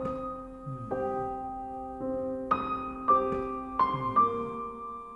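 Background piano music: slow, held chords played one after another, each left to ring.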